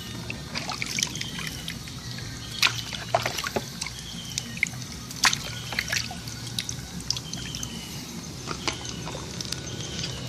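Water from a garden hose running into a plastic basin, with irregular splashes and knocks as a freshly etched copper circuit board is rinsed in it.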